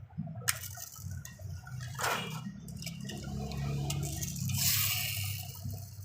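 Handling noise from small diecast toy vehicles: scattered light clicks and knocks with bursts of rustling, over a low hum.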